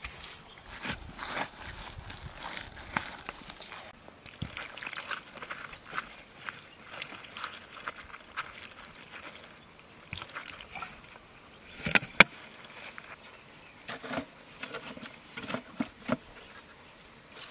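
Rubber-gloved fingers working through wet mud: scattered squelches, scrapes and small clicks, with one sharper, louder click about twelve seconds in.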